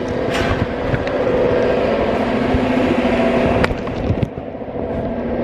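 A steady motor drone with a few sharp knocks from the camera jostling inside a bag.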